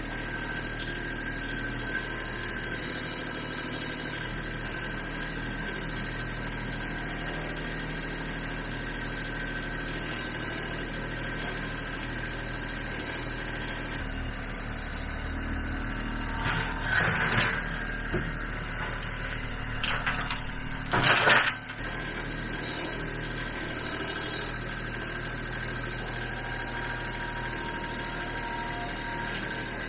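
Kubota B2650 compact tractor's three-cylinder diesel running steadily under light load while its front bucket works a ditch, with a high steady whine over the engine. A little past halfway come two louder spells of rough clatter a few seconds apart, as the bucket digs and dumps.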